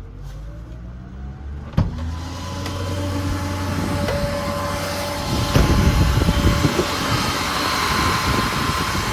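A 12,000-pound electric winch on a truck running under its controller: a motor whine with rough gear and cable noise. There is a sharp click near the start, and it gets louder about halfway through.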